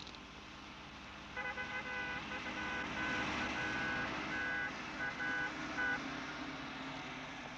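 A car approaching with its engine running, its horn sounding in a run of long and short honks from about a second and a half in until about six seconds in.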